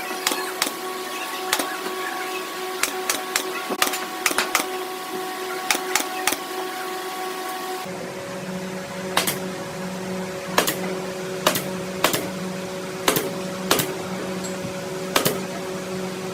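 Irregular sharp taps and clicks over a steady hum, the hum changing pitch abruptly about eight seconds in.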